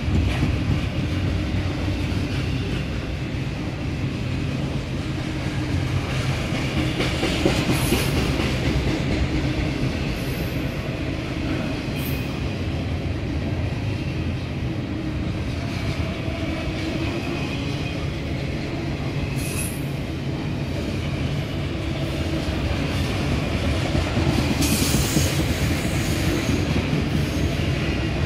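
Double-stack intermodal well cars rolling past: a steady rumble of steel wheels on the rails, with a few brief high-pitched wheel squeals.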